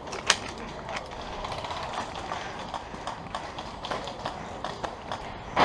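A single sharp click, then a steady run of light tapping and rattling, the footsteps and kit of an airsoft player on the move.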